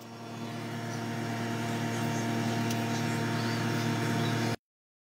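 A steady low mechanical hum with a whirring noise over it, like a running motor or fan. It swells in over the first second and cuts off abruptly about four and a half seconds in.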